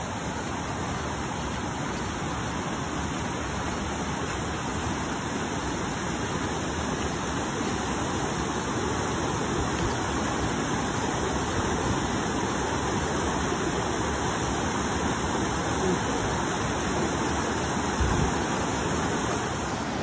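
Rain-swollen river in flood, its fast brown water rushing steadily and loudly over the rocks of the ford.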